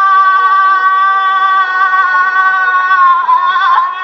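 A voice holding one long, steady sung note with a slight waver, sagging a little in pitch near the end.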